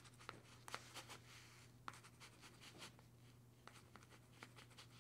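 Near silence: room tone with a low steady hum and faint hiss, broken by a few faint scattered ticks and scratches.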